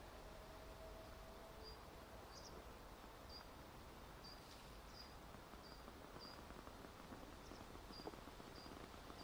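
Faint, short, high-pitched bird chirps, all alike, repeated irregularly about twice a second from roughly two seconds in, over a quiet outdoor hiss.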